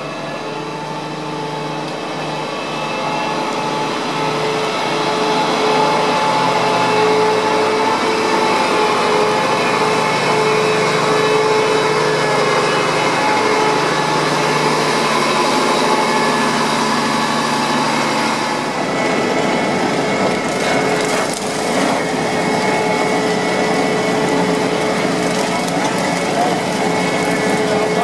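Ploeger AR-4BX self-propelled potato harvester running, its engine and drives giving a low drone under a steady whine. About two-thirds through, the drone drops away and a noisier rattling and crunching of the digging gear takes over.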